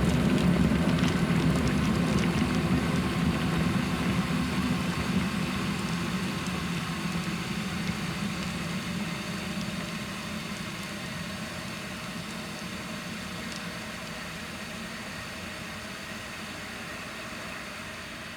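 Kettle boiling, a low rumbling bubble with a hiss over it, getting steadily quieter as the boil dies down.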